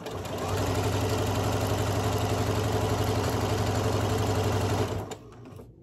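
Janome M7 sewing machine stitching a seam through a pinned patchwork quilt block, running at a steady fast speed. It starts at once, reaches full speed within about half a second, and stops about five seconds in.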